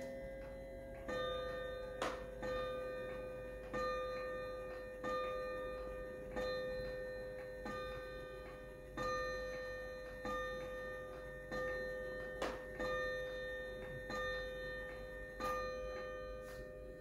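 Kieninger triple-chime wall clock striking the hour of twelve on its chime rods after its quarter chime: twelve even strikes, about one every 1.3 seconds, each ringing out and dying away before the next. There are two short sharp clicks between strikes.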